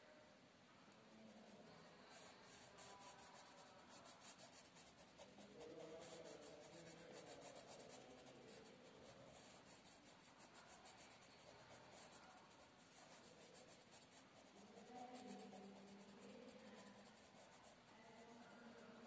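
Faint scratching of a marker scribbling quickly back and forth on a paper textbook page as it colours in a shape, in several stretches of rapid strokes.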